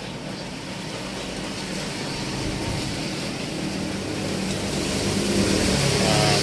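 Highway traffic passing: a vehicle's engine and tyre noise grows steadily louder toward the end.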